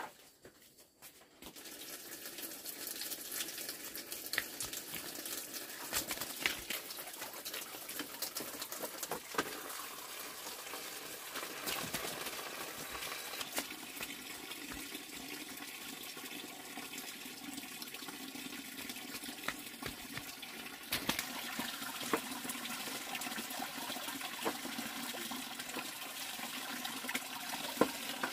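Water running steadily from a hose into a plastic basin, with scattered small clicks and knocks.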